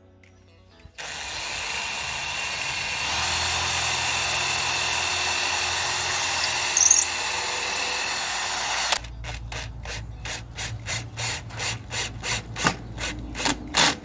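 Cordless drill driving screws into a timber support board: the motor runs steadily for about eight seconds, then gives a string of sharp clicks, about three a second, through the last few seconds.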